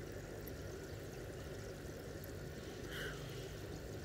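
Faint steady running water with a low hum underneath, the background of a fish farm's tanks.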